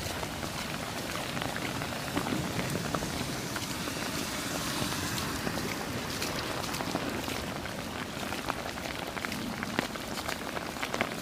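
Stormwater runoff running and splashing after a heavy downpour, a steady watery hiss with many scattered drips and small splashes.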